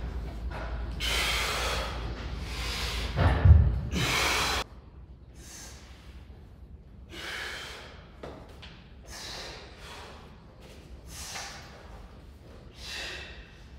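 A person breathing hard from exertion during single-leg squats, with short, sharp breaths about once a second or so. For the first four and a half seconds a low rumble runs underneath, with a thump about three and a half seconds in, then it cuts off suddenly.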